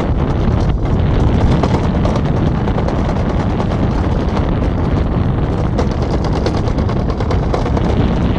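Summer toboggan sled running fast down a stainless-steel trough, a steady rumble with a continuous fine rattle, and wind buffeting the microphone.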